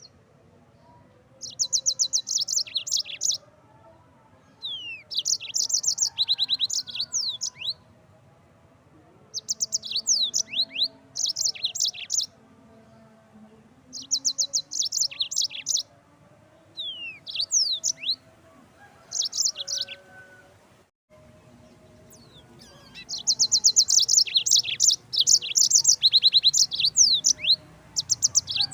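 Yellow-fronted canary (Mozambique canary) singing: repeated phrases of rapid high trills mixed with quick down-slurred whistles, separated by short pauses, with a longer unbroken run of song near the end.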